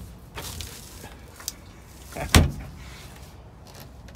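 Heavy metal clunk from an old semi truck's cab door about two seconds in, after a fainter knock near the start.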